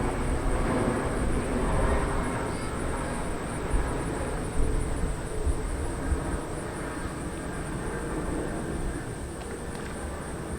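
Outdoor ambience picked up by a Movo VXR 10 on-camera shotgun microphone: a steady low rumble that slowly fades, under a thin, evenly pulsing high hiss, with a few faint knocks in the middle.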